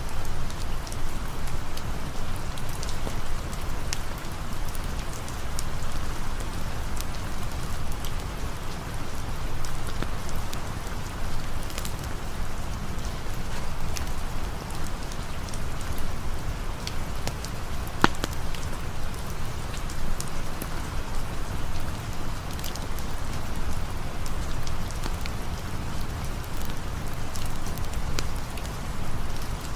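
Steady rain falling, with scattered sharp crackles from a campfire and one louder pop about two-thirds of the way through.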